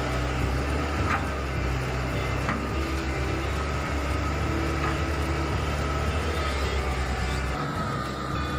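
Hitachi ZAXIS 110 excavator's freshly overhauled diesel engine running steadily, with a faint steady high whine over the low engine hum and a few light clicks.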